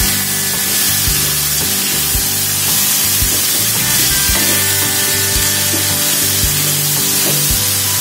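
Petai and anchovy sambal sizzling in a wok while a metal spatula scrapes and tosses it. Background music with a steady beat plays over it.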